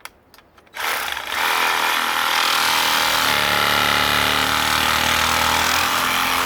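A few light clicks, then a reciprocating saw (Sawzall) starts about a second in and runs steadily, cutting through an aluminum wheel rim. Its blade is worn almost toothless by the aluminum.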